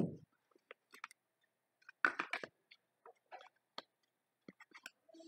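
Hands handling a cardboard phone box and its packaging: a soft thump at the start, then scattered light clicks and taps, with a cluster of louder sharp clicks about two seconds in.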